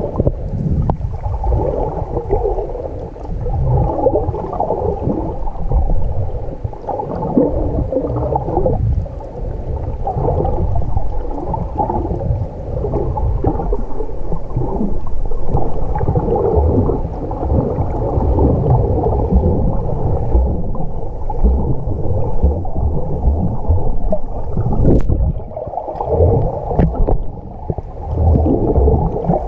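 Muffled underwater gurgling and rumbling of water moving around a camera held below the surface while snorkeling, dull and deep with no high tones. It briefly drops away with a click about three-quarters of the way through.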